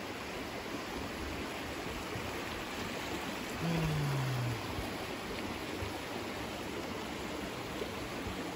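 Muddy flash-flood runoff rushing steadily down a gully beside a road. About four seconds in, a brief low hum falls in pitch.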